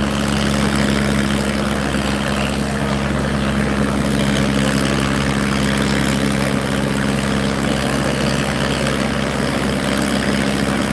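Sonalika and Farmtrac tractors' diesel engines running flat out under full load in a tractor tug of war, each pulling against the other with its front wheels lifted. The engines make a steady drone at constant pitch.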